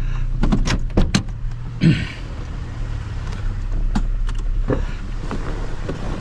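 A vehicle's engine running steadily as a low hum. Several sharp clicks and knocks come in the first second and a half and again around four to five seconds in, with a short rustling burst about two seconds in.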